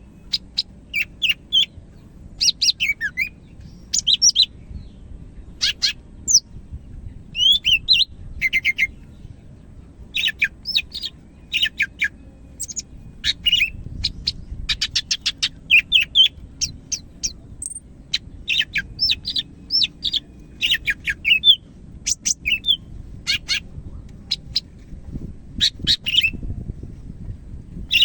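Cucak hijau (leafbird) singing energetically: a run of quick high chirps, whistled notes and rapid trills in short bursts, one phrase after another, over a faint low rumble.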